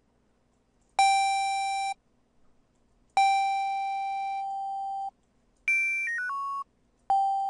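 A high software-synthesizer lead tone in Native Instruments Massive being auditioned: notes with a sharp start and a fading level. The same pitch is held twice, about one second and then about two seconds. A quick run of four notes steps downward, and the held note sounds again near the end. The patch is a work in progress, meant to imitate a high whistle sound.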